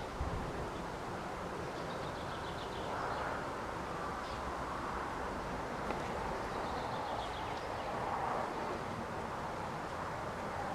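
Small birds singing over steady outdoor background noise, with two short, rapid high trills.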